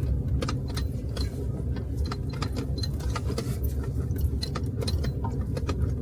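Inside the cab of an Isuzu D-Max 4WD driving on a rough dirt track: a steady low drone of engine and tyres, with frequent light clicks and rattles as the vehicle jolts over the ground.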